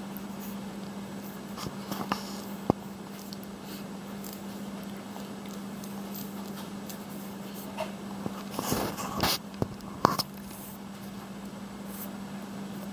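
A steady low hum, with a few light taps and rustles about two seconds in and a busier cluster of knocks and rustling between about eight and ten seconds in.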